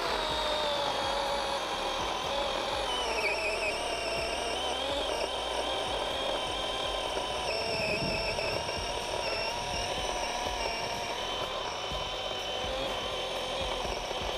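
DeWalt XR brushless cordless chainsaw running at full speed and cutting through a thick log, a steady electric motor whine with the chain rasping through the wood. The pitch dips briefly about three seconds in as the chain bites, then holds.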